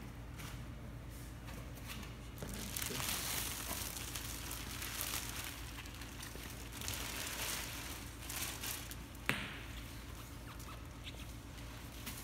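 Clear plastic wrapping rustling and crinkling as it is pulled off a 3D printer, with a single sharp knock about nine seconds in.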